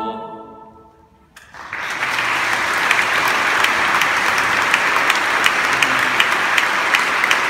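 A held final chord of music fades away in the first second, then audience applause breaks out about a second and a half in and quickly settles into steady, dense clapping.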